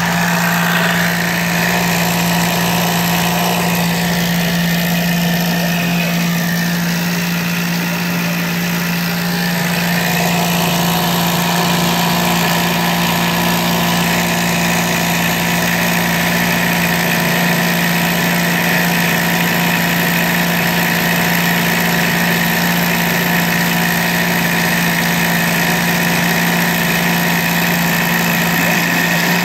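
Small DC motor driving the reciprocating needle of a CNC needle cutter as it cuts 3 mm Depron foam, a steady buzzing hum that holds one pitch throughout.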